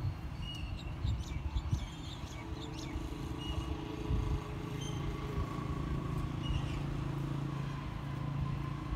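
An engine runs steadily in the background over a constant low rumble. Its hum grows clearer a few seconds in and eases off near the end. A few short, high chirps come and go.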